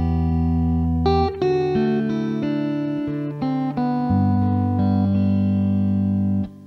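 Instrumental rock guitar music: electric guitar holding long melody notes that change every half second or so over sustained low notes. It breaks off briefly near the end.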